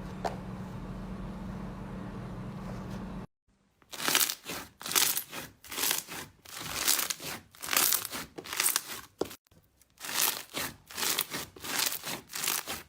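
Slime being squeezed and pressed by hand, making a run of crackling, crinkling squishes roughly every half second. A few seconds of steady low hum come first, and the crackling starts after a short break.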